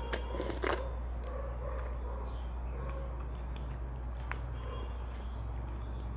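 Taho sipped through a drinking straw, with a few short sucking noises in the first second, then the straw stirring and knocking lightly in a plastic cup, giving scattered soft clicks. A steady low hum lies under it all.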